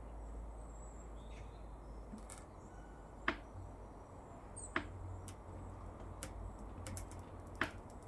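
Three sharp clicks a second or two apart, with a few fainter ticks, as a tire plug insertion tool forces a rubber repair strip through a puncture in the tread.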